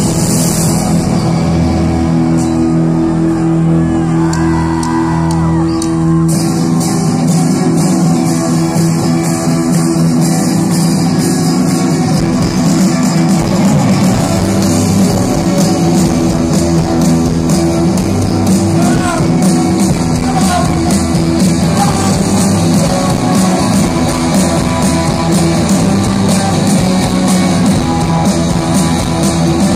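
Live rock band playing loud: electric guitars, bass and drums, with a singer's voice at times, heard from within the crowd.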